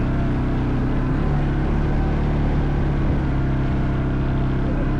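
CFMoto ATV engine running steadily, its note stepping up slightly about a second in.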